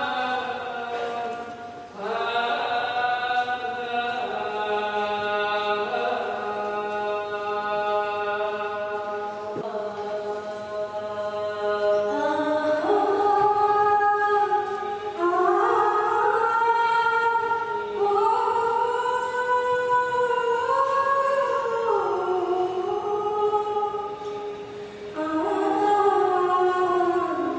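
Choir singing long held notes together, the chord stepping to new pitches every second or two.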